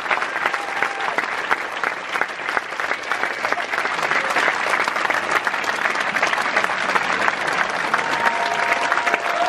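Large theatre audience applauding, a dense, steady wash of clapping from many hands.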